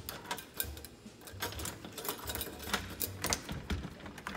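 Key turning in a metal deadbolt lock on an entry door, with the doorknob handled alongside: a run of irregular metallic clicks and rattles as the lock is worked to check that it locks smoothly.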